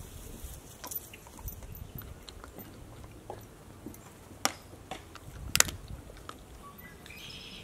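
A dog gnawing on a raw meaty bone: scattered crunches and small clicks of teeth on bone, with two sharp clicks about a second apart past the middle.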